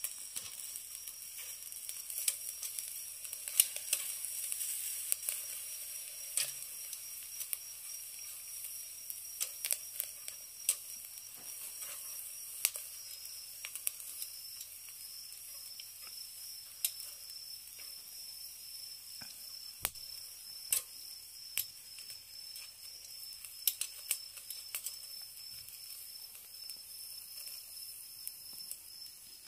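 Beef omasum sizzling on the wire net of a charcoal shichirin grill, a steady hiss broken by many sharp crackles and pops, with metal tongs clicking against the grill as the pieces are turned.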